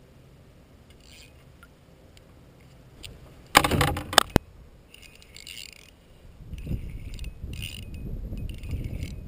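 Fishing gear being handled in a kayak: a loud clatter with two sharp knocks about halfway through, then short metallic rattles. A low rumbling noise starts near the end.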